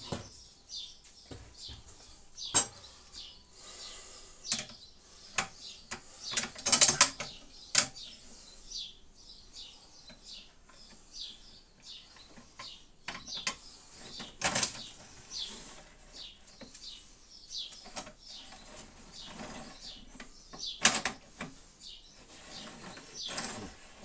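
Scattered clicks, knocks and rattles of wood and metal handled by hand, as a wooden shim and a metal drawer slide are fitted under a cabinet, with a few louder knocks among them.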